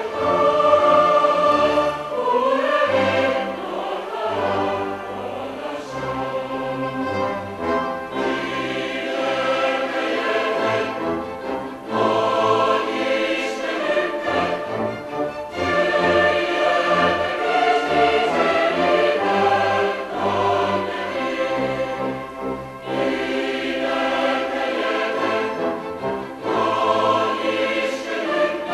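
Large combined choir singing a hymn in full harmony, accompanied by an orchestra with cellos and double basses.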